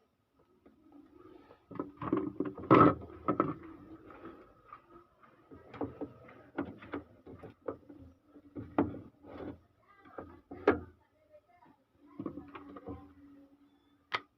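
Washing machine parts being fitted back into place: an irregular run of knocks, clicks and scrapes, loudest about three seconds in, with a sharp click near the end.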